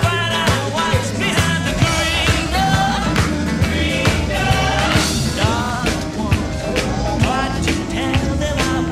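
Rock and roll music with singing, a steady drum beat and bass.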